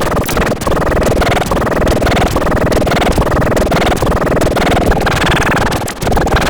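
Loud, heavily distorted, pitch-shifted remix of a children's song, cut into chopped segments of about a second each.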